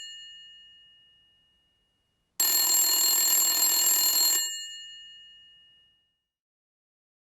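Old telephone's mechanical bell ringing: the tail of one ring fades out, then about two and a half seconds in comes one more ring lasting about two seconds, its bell tones dying away after it stops.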